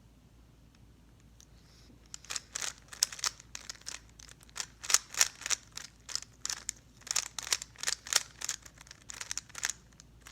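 Rubik's cube being turned fast: its plastic layers clicking and clacking in quick runs, starting about two seconds in and stopping near the end, the last turns of a solve.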